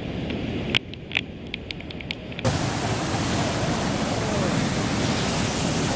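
Sea surf and water rushing over a rocky shore, a steady noise. It is duller at first, with scattered short clicks, then turns suddenly louder and fuller about two and a half seconds in.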